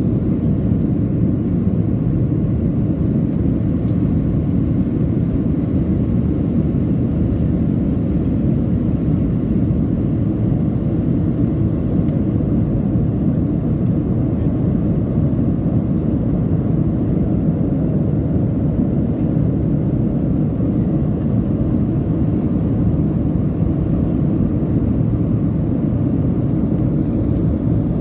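Steady low roar of a Boeing 737's jet engines and rushing air heard inside the passenger cabin during the climb after takeoff, with no change in pitch or level.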